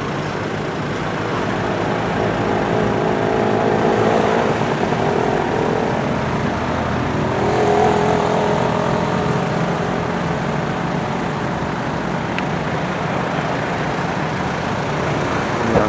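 Road traffic: a steady hum of car and motorbike engines, with engine notes swelling as vehicles pass about four and eight seconds in.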